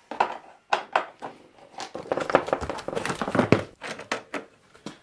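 Workshop handling noise as a motocross bike's plastic bodywork is unbolted and taken off with spanners. It comes as a string of irregular knocks, taps and plastic rattles, busiest about two to three seconds in.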